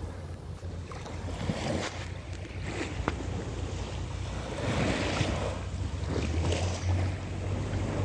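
Small waves washing in shallow seawater over sand, swelling and ebbing a few times, with wind rumbling on the microphone.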